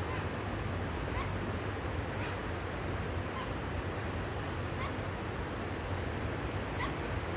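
Steady rushing background noise, with a bird's faint short rising call repeating about once a second.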